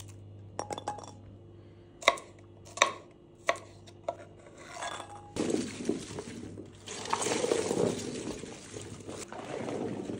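A few sharp clicks on a metal tray as garlic cloves are peeled with a knife. About five seconds in, a louder rustling clatter starts as hands toss chopped peppers, cucumbers and cauliflower in a large metal tray.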